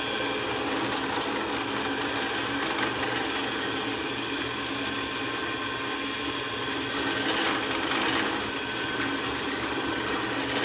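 Drill press running steadily while a bit a little over a quarter inch bores down into the end grain of a pine kindling stick, the cutting noise swelling briefly about seven and a half seconds in.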